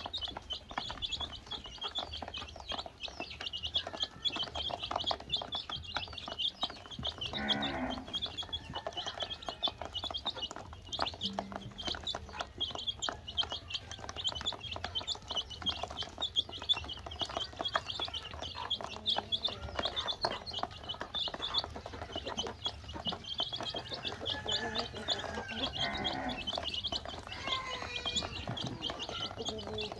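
A flock of baby chicks peeping continuously in a dense stream of short, high calls, with many small pecking clicks as they eat feed from a plastic basin.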